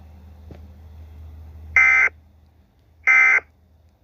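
Emergency Alert System end-of-message tones: two short, harsh, buzzy digital data bursts about a second apart, much louder than what precedes them. Before them a low rumbling brown-noise bed fades out.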